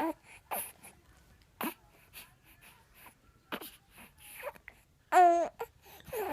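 A baby making short honking, goose-like squawks: about six separate calls, the loudest and longest one, with a quickly wavering pitch, about five seconds in.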